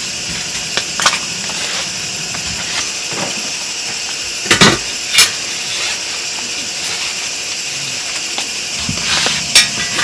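A few knocks and clinks of camping gear being picked up and moved inside a tent, the strongest pair about halfway through and another near the end, over a steady hiss.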